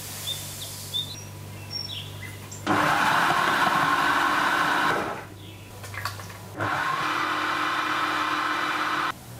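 Magimix food processor motor set to speed 5, starting about two and a half seconds in and running steadily for a couple of seconds while creaming butter, sugar and salt, then stopping and running again for about two and a half seconds to mix in the eggs.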